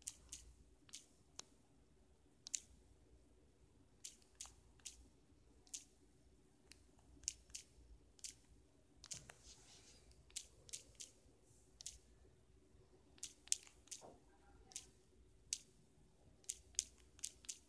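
Irregular sharp clicks of digits being typed on a smartphone's touchscreen keyboard, often in quick runs of two or three, over a faint steady hum.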